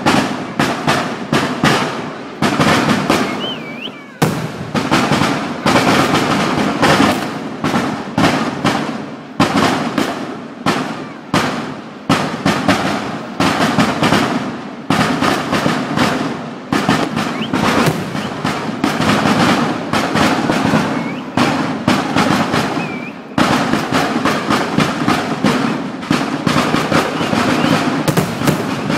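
Fireworks display: a dense, continuous barrage of firecracker bangs and crackling, many blasts a second and overlapping. An aerial shell bursts near the end.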